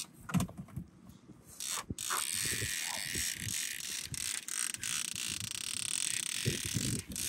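Fishing reel ratcheting and clicking as line is worked with a walleye on.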